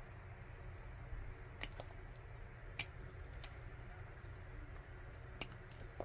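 Scissors snipping thin wire strands of an audio cable: about four short, sharp snips spread over a few seconds, over a low background hum.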